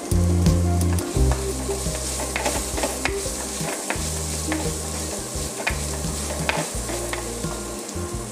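Sliced onions, ginger and green chillies sizzling in oil in an earthenware clay pot, stirred and scraped with a wooden spoon in a run of small clicks, the onions sautéing until soft. Background music with a low bass line plays underneath.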